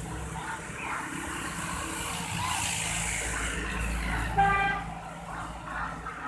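A motor vehicle passing on the road, its low engine rumble swelling in the middle, with one short horn toot about four seconds in.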